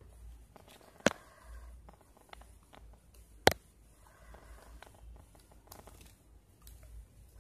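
Stiff plastic basket wire rustling and scraping as the strands are pulled and knotted by hand. Two sharp clicks stand out, about a second in and again about two and a half seconds later, with small ticks in between.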